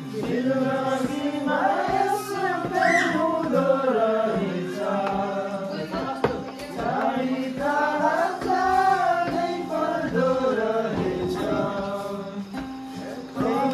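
Music with a singing voice: a melodic vocal line that rises and falls in phrases over a steady low held tone.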